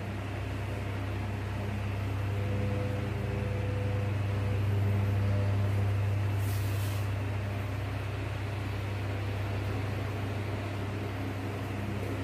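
Steady low hum with an even hiss underneath: the room tone of a classroom with machinery or mains hum running. About six and a half seconds in, a brief faint scrape of a marker on a whiteboard.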